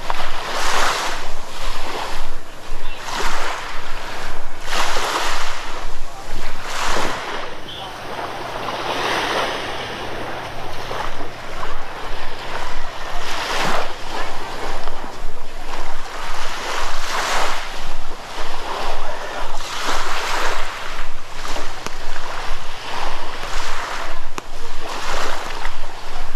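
Waves washing on a sandy beach, with wind on the microphone. A rhythmic crunch of footsteps in sand, about two steps a second, pauses for a few seconds about a third of the way in and then resumes.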